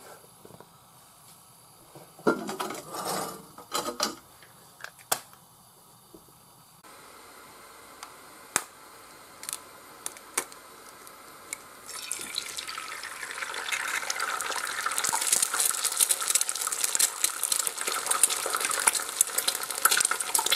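A few knocks and sharp clicks of cookware as an egg is cracked, then, past the middle, an egg starts frying in a hot oiled pan with a steady crackling sizzle.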